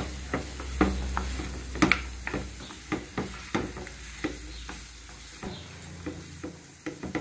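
A wooden spoon stirring caramelized onion with dried apricots and raisins in an aluminium pan, with irregular scrapes and taps of the spoon against the pan.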